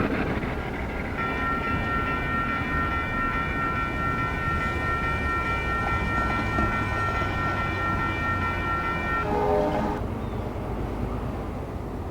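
Locomotive horn on a passenger train sounding one long blast of about eight seconds, a chord of several notes held steady, over the rumble of the train. As it cuts off the sound drops briefly to a lower, wavering note.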